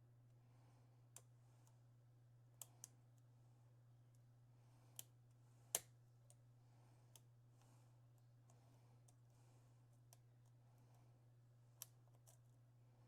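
Faint, irregular metallic clicks of a lock pick working the pins of an ASSA 6000 pin-tumbler lock held under a tensioner, about ten in all, the sharpest just before six seconds in. A steady low hum runs underneath.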